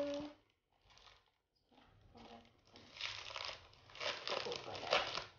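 Thin plastic wrapping crinkling and rustling as an iPad cover is handled and unwrapped, getting denser from about three seconds in.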